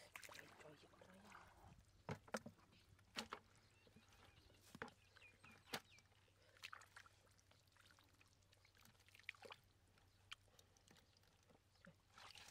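Hands working through shallow muddy water and mud, giving scattered soft splashes, slaps and squelches, the louder ones about two and three seconds in.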